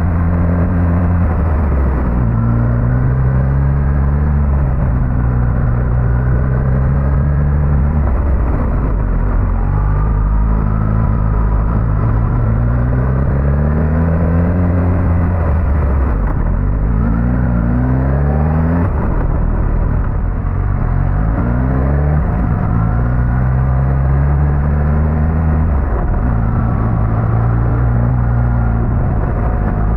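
Suzuki GSX-S1000GT's inline-four engine under way, its revs climbing, dropping back and climbing again several times as the rider accelerates and shifts, over a steady rush of wind and road noise.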